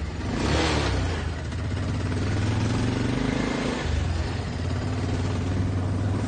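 Four-wheeled scooter's engine running under way, a steady low hum that shifts pitch a little a few times, with a brief rushing noise about half a second in.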